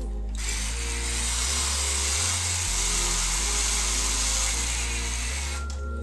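Electric drill running steadily for about five seconds, driving a screw into the microwave's plastic control panel, over background music.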